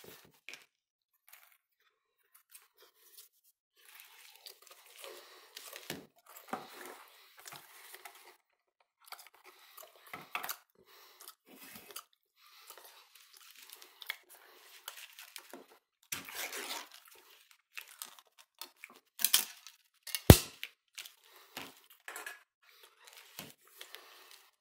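Intermittent crinkling and rustling of packaging with light clicks of a fork on a plate as smoked oysters are laid on crackers. The loudest sound is one sharp clack about twenty seconds in.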